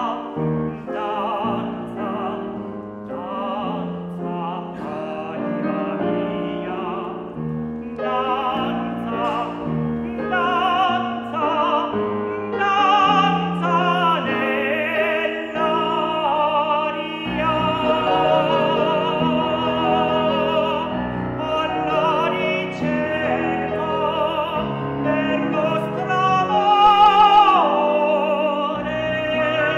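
A tenor singing an Italian art song in operatic style with vibrato, accompanied by a grand piano. Near the end he holds a loud high note, then his voice slides down.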